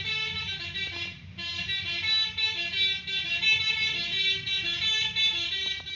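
Bus 'telolet' horn, a multi-note bus horn, playing a quick tune of stepping notes over the bus's engine rumble, with a short break just over a second in.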